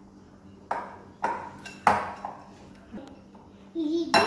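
Metal utensil clinking against a glass mixing bowl while stirring thick cake batter: three sharp ringing clinks about half a second apart, then lighter taps. Near the end a child's voice is heard briefly and the utensil strikes the bowl once more.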